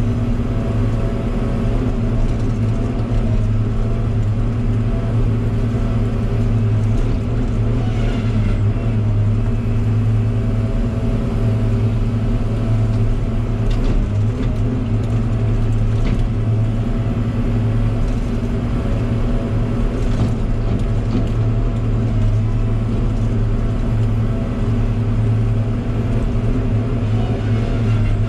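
Log loader's diesel engine running at a steady speed, heard from inside the operator's cab, with a few faint knocks now and then.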